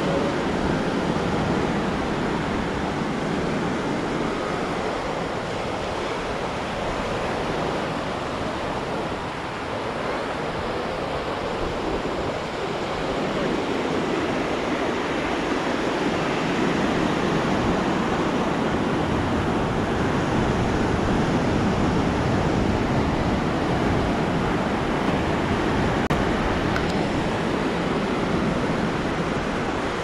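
Atlantic surf washing onto the beach: a steady rush of breaking waves, swelling a little louder in the second half.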